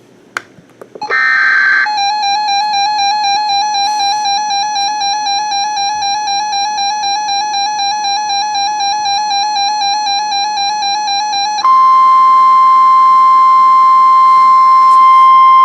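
Emergency Alert System tornado warning on NOAA Weather Radio: a short burst of screeching digital data tones about a second in, then a warbling electronic alarm tone pulsing a few times a second, which gives way near the end to the steady, loud single-pitch weather radio warning alarm tone.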